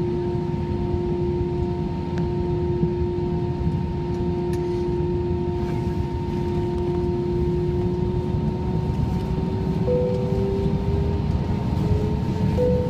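Jet engine noise heard inside the cabin of an Airbus A319 airliner on the ground: a steady low rumble with a whine that rises slowly in pitch over the last few seconds.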